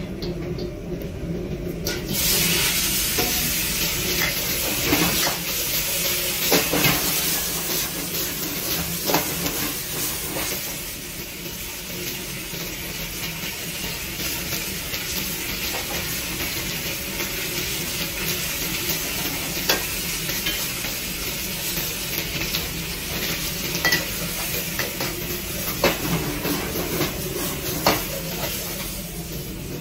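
Vegetables stir-frying in a wok on a gas burner: steady, loud sizzling that jumps up about two seconds in, with a metal ladle scraping and knocking against the wok now and then.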